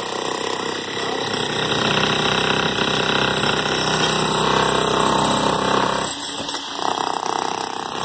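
Corded electric demolition hammers chiselling into a reinforced concrete slab: a loud, dense, rapid hammering that briefly lets up about six seconds in, then carries on.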